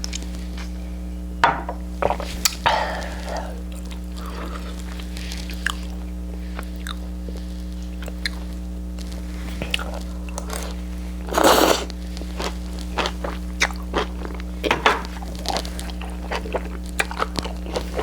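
Close-up chewing and crunching of food, with many short clicks and crackles and one louder crunch a little past the middle, over a steady low mains hum.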